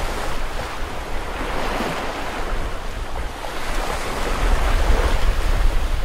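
Small waves washing up onto a sandy beach, with wind buffeting the microphone. The surf grows louder from about halfway through.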